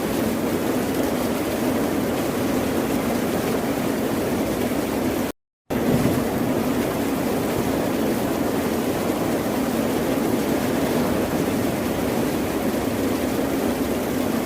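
Steady, unbroken rush of ocean surf with no separate wave breaks standing out. About five seconds in, it cuts to silence for a fraction of a second and then resumes, the mark of a splice in the recording.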